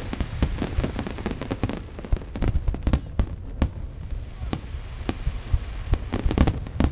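Fireworks display: a fast, irregular run of bangs and crackles over a low rumble, thickening into a tight cluster of bangs near the end.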